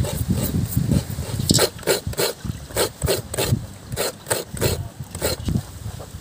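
Rhythmic hand strokes of food preparation, about three a second, from about a second and a half in until shortly before the end.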